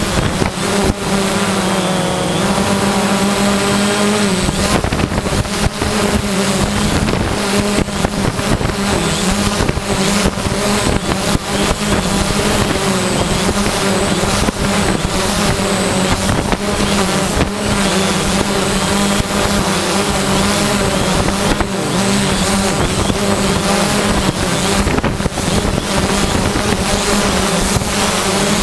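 A motor running steadily with a constant pitched hum, wavering in pitch a few seconds in, over a rushing noise.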